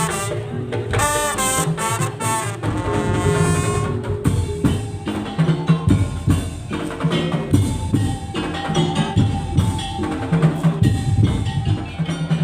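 Madurese tong-tong (daul) music: a dense, steady rhythm of drums and percussion. A wavering melodic line plays over it for the first few seconds, then the percussion carries on with held tones underneath.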